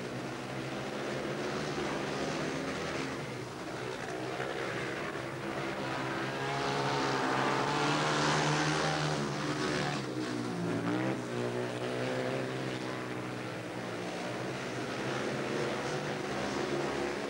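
Speedway bikes' single-cylinder 500cc methanol engines running flat out round the track, the pitch rising and falling as the riders throttle through the bends. The engines are loudest about eight seconds in, with a short drop and recovery in pitch a couple of seconds later.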